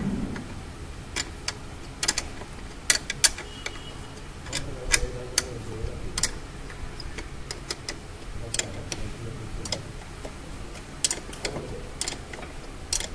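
Hand wrench clicking and clinking on the top-mount nuts of a Mercedes ML 350 front air strut as they are undone to remove the air shock absorber, in sharp irregular clicks.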